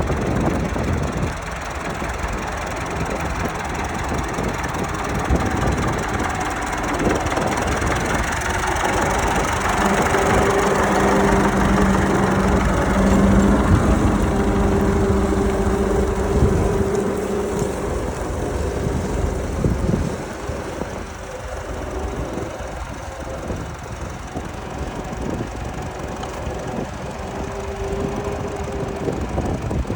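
Vintage Fordson tractor's engine running while pulling a trailing plough, with a steady engine note. It grows louder toward the middle, then drops after about twenty seconds.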